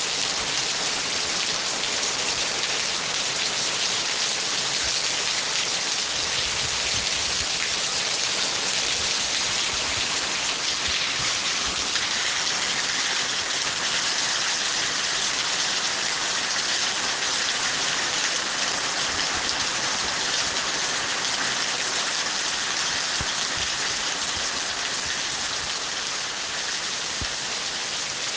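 Steady, heavy rain falling.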